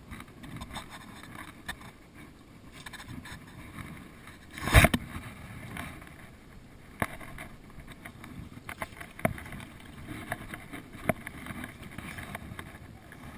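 Footsteps wading through soft, wet mud, with one loud knock about five seconds in and a few sharp clicks later.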